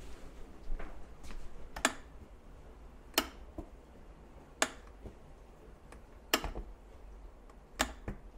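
Plastic on/off switch of an old electric jug kettle clicked again and again, six sharp clicks about a second and a half apart; the kettle is broken and won't come on.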